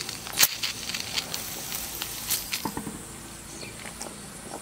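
Irregular sharp clicks and taps over a faint hiss as a tiny Stuart ST oscillating steam engine is turned over by hand on steam. It is not yet running steadily.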